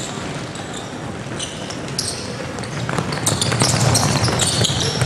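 Many players' sneakers on a hardwood basketball court: quick footfalls, then a burst of running steps and sneaker squeaks that grows louder from about three seconds in as the group sprints.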